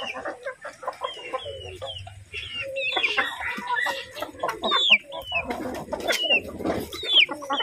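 A flock of Asil chickens clucking and calling close by, with many short high calls that fall in pitch and scattered sharp ticks.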